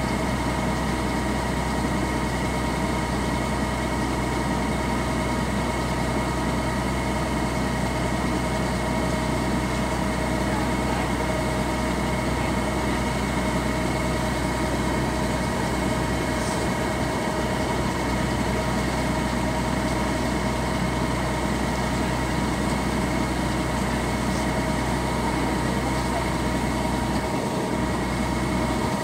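Kubota DC-70 combine harvester's diesel engine running at a steady speed, an even drone with a constant whine over it.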